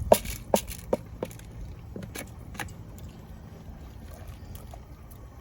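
Pots, lids or a spoon clinking and knocking, about six sharp metallic strikes in the first three seconds, then a low steady hum.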